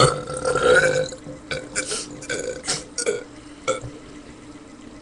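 A person belching loudly after gulping carbonated soda: one long burp of about a second, then several shorter bursts over the next few seconds.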